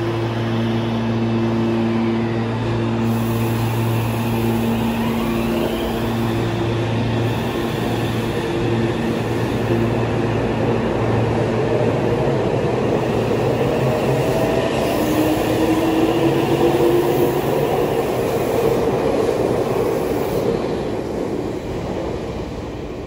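Meitetsu 2200 series electric train pulling out of a station. A steady hum while it stands gives way to a rising electric motor whine as it accelerates, with wheels rumbling past; the sound fades as it draws away near the end.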